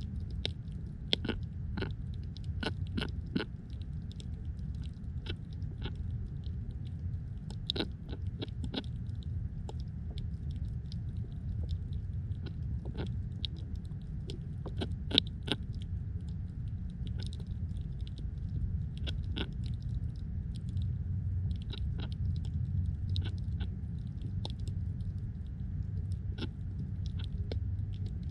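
Underwater sound at a submerged camera: a steady low rumble of water with irregular sharp clicks and snaps, thickest in the first few seconds and again midway.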